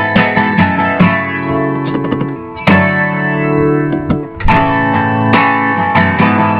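Guitar strumming chords in an instrumental passage of a pop-rock song, with no singing. New chords come in about two and a half and four and a half seconds in.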